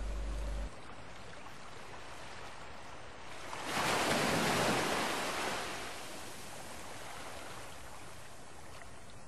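Water pouring from a pipe into a holding tank: a steady rushing and splashing that grows much louder about three and a half seconds in and eases back about two seconds later.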